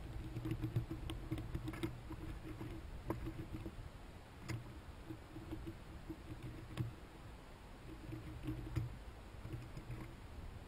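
Chipmunks working at dried corn, with scattered small sharp clicks and cracks as kernels are husked and gnawed. A low humming drone comes and goes underneath.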